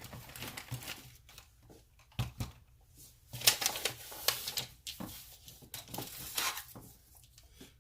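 Irregular crinkling and rustling of packaging, with sharp clicks of small parts being handled.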